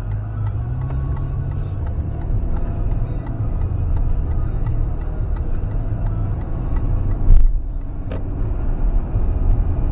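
Steady low rumble of road and engine noise inside the cabin of a moving fifth-generation Toyota 4Runner. A single sharp thump comes about seven seconds in.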